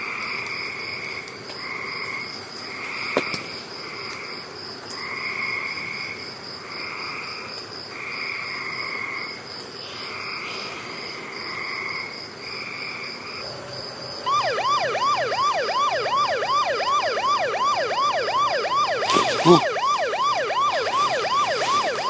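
Night insects chirp steadily in pulses; about fourteen seconds in, a loud electronic siren starts up close by, yelping rapidly at about four sweeps a second, with a sharp click near the end.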